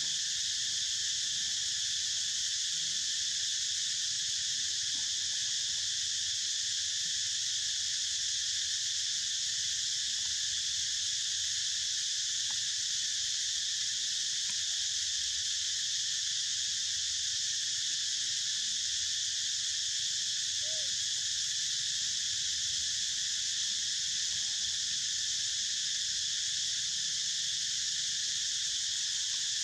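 Steady, high-pitched insect chorus that drones on without a break.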